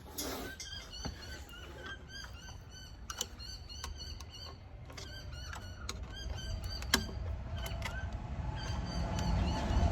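Small birds chirping over and over, with a few sharp metallic clinks of tools on the machine. A low rumble builds near the end.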